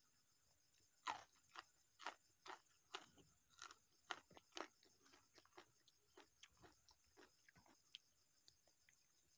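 Crisp crunching of a raw long bean being bitten and chewed, about two crunches a second, loudest over the first few seconds and then settling into softer, sparser chewing clicks.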